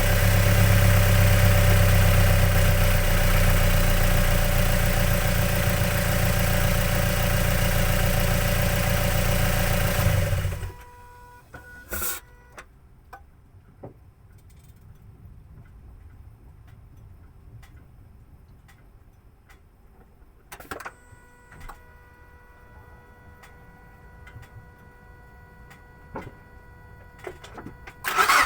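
Mazda MX-5 NC1's 2.0 l MZR four-cylinder engine, fitted with cams and a cold air intake, heard from under the bonnet. It runs at a steady idle with loud intake noise, then shuts off abruptly about ten seconds in. A long quiet stretch with a few faint clicks follows, and the engine starts again at the very end.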